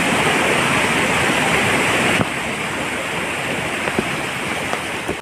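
Steady rush of water from a waterfall pouring over rocks into a rocky stream. It drops a little in loudness suddenly about two seconds in.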